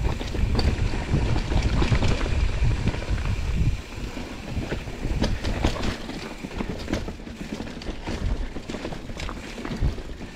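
Mountain bike riding over wet rocks and roots: wind buffeting the microphone, heavy for the first few seconds and then lighter, with frequent clatters and knocks from the tyres and frame hitting rock.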